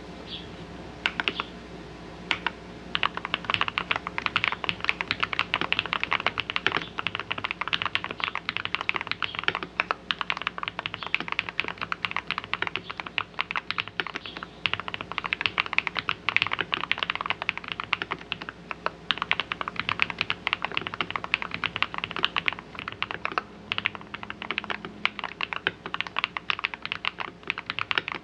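Continuous fast typing on an RK Royal RG-987 mechanical keyboard with lubed 62g Holy Panda-style tactile switches, a steel plate, Poron plate foam and a silicone-filled case, giving a low, full "thocky" keystroke sound. Rapid, uneven keystrokes begin about a second in.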